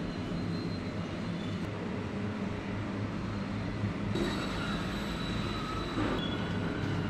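A steady low rumble and hum with no distinct events, a faint high whine coming in about four seconds in.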